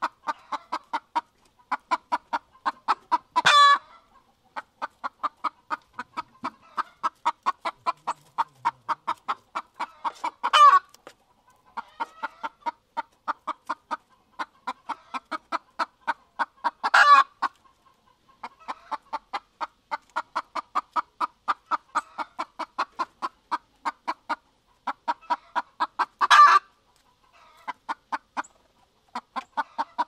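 Chickens clucking in a rapid, even run of short clucks, cut into four times by a louder, higher call lasting about half a second.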